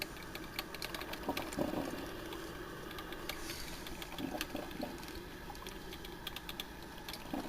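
Black & Decker thermal carafe drip coffee maker brewing: irregular small clicks and sputtering ticks over a faint steady background.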